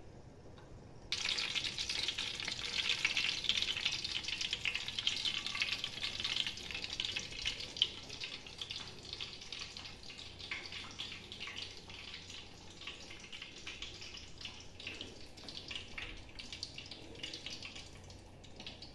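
Hot cooking oil crackling and sizzling in a large pot on a gas burner as it heats for frying onions. It starts abruptly about a second in and slowly dies down.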